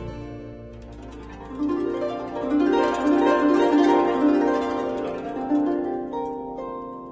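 Instrumental music: a plucked string instrument plays fast rippling arpeggios over a low sustained bass note. The notes swell from about a second and a half in and thin out near the end.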